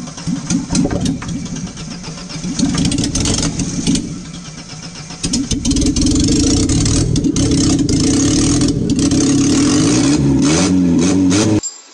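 Car engine revving hard. From about five seconds in it is held flat out at high revs in one steady, loud drone, and the sound cuts off abruptly near the end.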